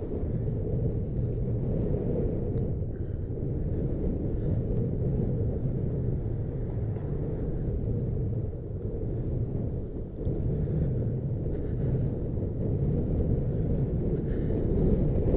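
Strong wind buffeting the microphone in a low, steady rumble, easing briefly about nine seconds in.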